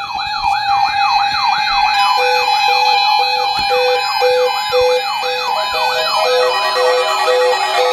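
Several weather alert radios sounding their alarms together as a NOAA Weather Radio test alert comes through. A rising-falling siren sweep repeats two or three times a second over a steady tone, and from about two seconds in an on-off beep joins about twice a second.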